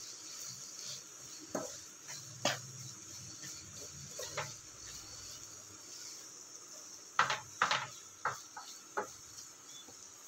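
Wooden spatula stirring and scraping grated carrot, ghee and sugar around a nonstick pan, with scattered knocks of the spatula against the pan and a cluster of them about seven to eight seconds in, over a faint steady hiss. The sugar is still melting into the carrot.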